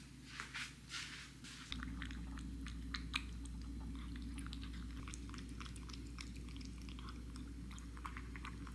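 Domestic cat eating wet food from a bowl: quick, faint, wet chewing and lip-smacking clicks, many in a row.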